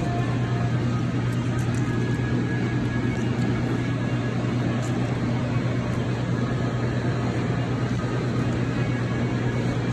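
Steady low mechanical hum with a constant rushing noise, like a ventilation fan or running machinery in a fast-food dining room, holding an even level throughout.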